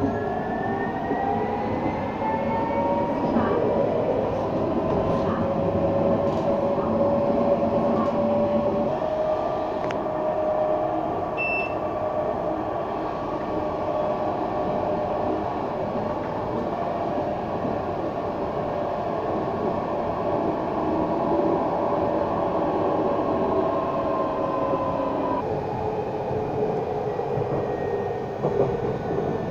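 Alstom Citadis 302 tram heard from inside the saloon on the move: a steady wheel-and-track rumble with the traction motors' whine over it. The whine rises in pitch as the tram accelerates early on, holds steady at speed, and its upper tone drops away about 25 seconds in.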